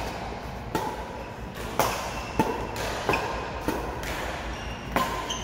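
Badminton rackets striking a shuttlecock during a doubles rally: about seven sharp cracks, spaced irregularly from half a second to a second apart, echoing in a large hall.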